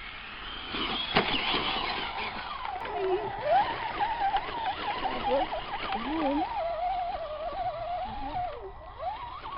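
Electric motor and gearbox of a stock Axial Deadbolt RC truck whining, the pitch rising and falling quickly with short throttle blips as it crawls over an obstacle, with a sharp click about a second in.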